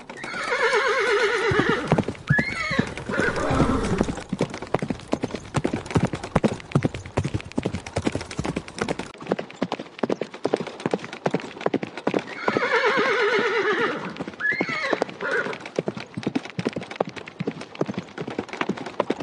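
Horse whinnying, followed by a short gliding call and then a steady clip-clop of hoofbeats at a walk. About twelve seconds in a second whinny sounds over the hooves.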